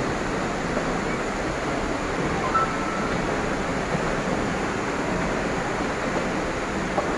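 Steady, even rushing background noise with no distinct events, and a brief thin tone about two and a half seconds in.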